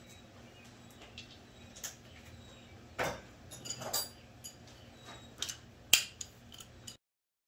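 Scattered metallic clinks and taps of tools and parts being handled, over a faint steady hum; the sound cuts off suddenly near the end.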